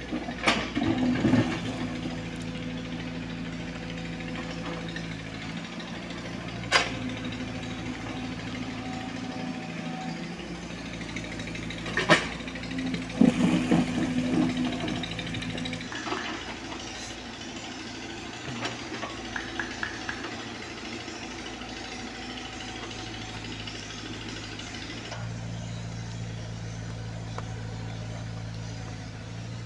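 Komatsu PC75UU mini excavator's diesel engine running steadily, rising to a heavier working note in spells as the hydraulics dig. A few sharp knocks stand out over the engine.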